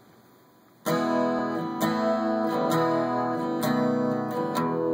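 Steel-string dreadnought acoustic guitar strummed in a slow, even rhythm, starting about a second in after a brief hush: the intro of a song before the vocals come in.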